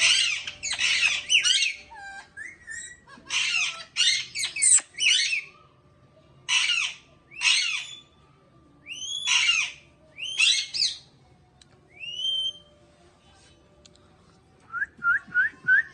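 African grey parrot calling in loud bursts of harsh squawks, some rising into whistled glides. Near the end comes a quick run of about five short rising whistles.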